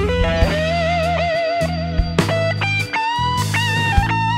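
Blues-rock background music: an electric guitar plays a lead line, holding one wavering note near the start, over a steady bass and drum beat.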